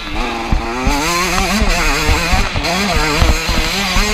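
Yamaha YZ125's single-cylinder two-stroke engine, heard on board, revving up and falling back again and again as it is ridden round a motocross track. Short low thumps come through every so often.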